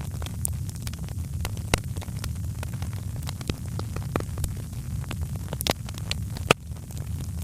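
Wood fire crackling in a fireplace: irregular sharp pops and snaps over a steady low rumble of the flames, with one louder pop about six and a half seconds in.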